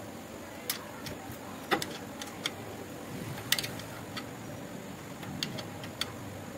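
Irregular sharp metal clicks and clinks of a 13 mm ring spanner on a motor mounting nut and steel bracket as the bolt is tightened, the spanner being worked back and forth; two clinks stand out, about a second and a half and three and a half seconds in.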